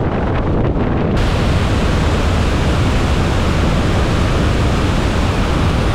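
Floodwater released from a dam rushing down a concrete spillway channel in a loud, steady roar of white water. About a second in, the rush turns brighter and hissier.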